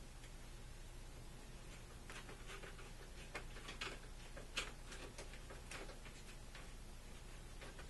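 Hand screwdriver turning a screw out of a marker board's frame: faint, irregular clicks and ticks, the loudest a little past the middle.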